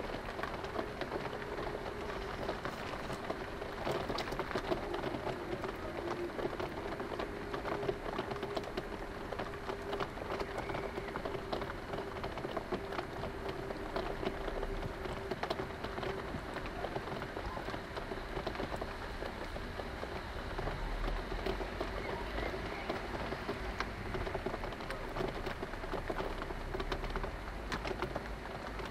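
Steady heavy rain pattering on surfaces, with a low rumble of thunder through the second half.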